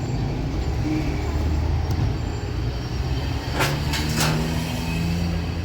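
Steady low rumble of a road vehicle, with two sharp clicks a little past the middle.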